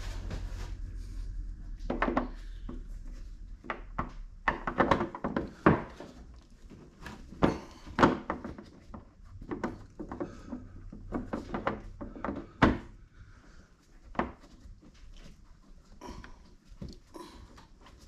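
Hands working an LED bulb socket back into the turn-signal housing of a headlight: scattered plastic knocks and clicks, with a low rumble for the first few seconds.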